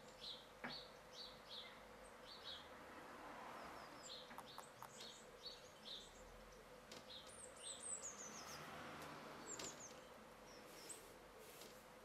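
Small songbirds calling faintly. Short high chirps come about twice a second, then about seven seconds in there is a quick falling run of high notes, and another falling note comes near ten seconds.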